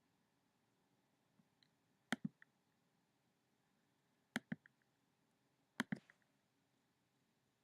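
Computer mouse clicking: three quick double-clicks, about two seconds apart, over near silence.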